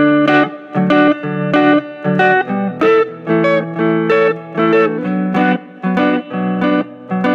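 Background music: a guitar playing a melody of picked notes, several a second.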